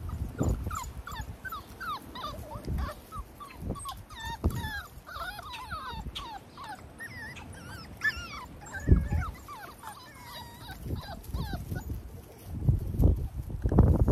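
Six-week-old XL pitbull puppies whining and yelping in many short, high squeaks, one after another. Several low thumps come in among them, the loudest about nine seconds in and near the end.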